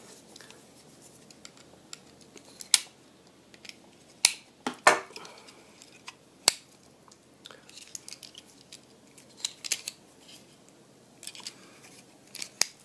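Hands handling a Majorette diecast model car and its clear plastic packaging, working the car free of the rubber bands that hold it: scattered light rustling with a handful of sharp plastic and metal clicks.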